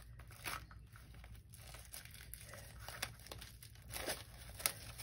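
Faint crinkling and rustling of a thin clear plastic sleeve being opened, with scattered soft crackles.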